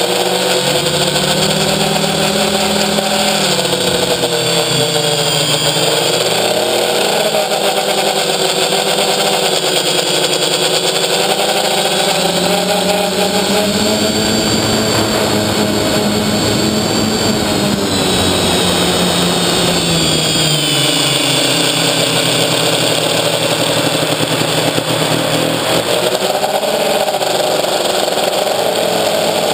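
Electric motors and propellers of an FPV quadcopter heard from its onboard camera: a steady whine whose pitch rises and falls again and again as the throttle changes.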